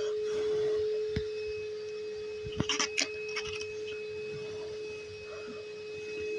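A steady electric hum at one constant pitch, with a fainter high tone above it. About two and a half to three and a half seconds in come a few light clicks as a raccoon rummages in a metal tray of fruit.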